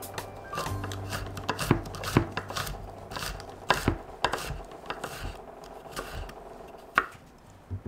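Chef's knife mincing garlic cloves on a wooden cutting board: irregular taps of the blade on the board, with a few louder chops.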